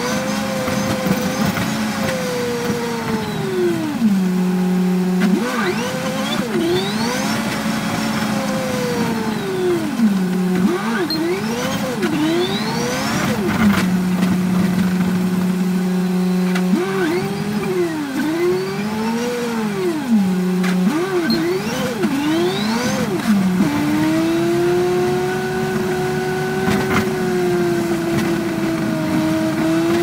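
Yutong ZK6831HGA city bus heard from the driver's seat while under way: its engine and drivetrain run with a whine that swoops up and down in pitch again and again over a steady rush of road noise. For the last several seconds the whine settles into a steadier tone.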